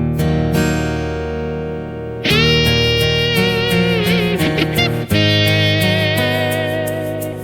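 Music led by guitar: sustained notes over a bass line, with a lead melody that bends in pitch and new phrases coming in about two and five seconds in.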